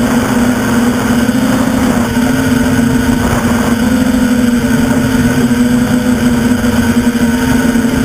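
Electric motors and propellers of an Innov8tive Designs NL-650 quadcopter droning steadily in flight, heard from the craft's own onboard camera. The pitch wavers a little a couple of seconds in.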